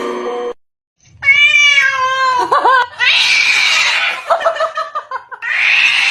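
Cat meowing loudly in several long calls that bend in pitch, alternating with harsher, noisier cries.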